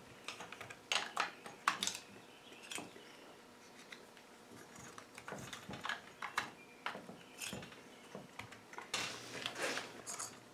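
Scattered small clicks and clatters of hands working on a Husqvarna 55 chainsaw, seating the pull cord in its recoil starter.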